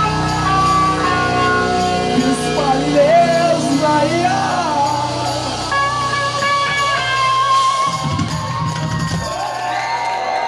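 Live rock band playing the closing section of a song, with held and wavering sung notes over the instruments; the bass and drums drop out near the end.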